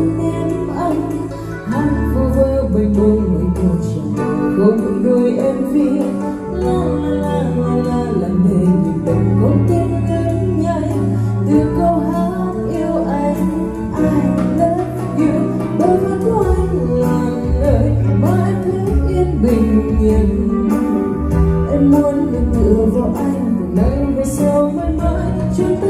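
A woman sings a Vietnamese ballad live into a handheld wireless microphone over a karaoke backing track with a strong bass line. Both play through 4-Acoustic PCS-115Q full-range speakers and a PCS-118BQ subwoofer.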